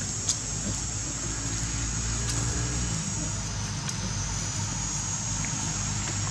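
Steady low engine-like hum of a motor vehicle running, with a constant high-pitched drone above it.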